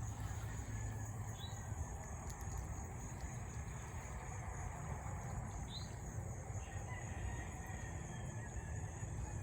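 Insects droning in a steady high-pitched chorus over a low rumble, with two brief chirps, one about a second and a half in and one near six seconds.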